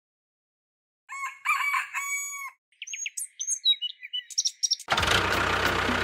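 After a second of silence, a rooster crows, followed by quick high bird chirps. About five seconds in, a louder, dense sound with a low steady hum cuts in.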